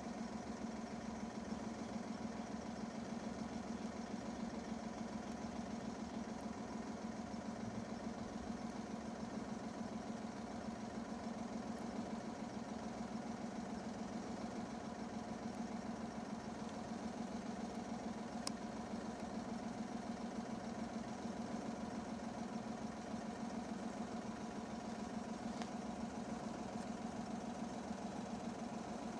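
An engine idling steadily: an even, unbroken low hum that does not rise or fall.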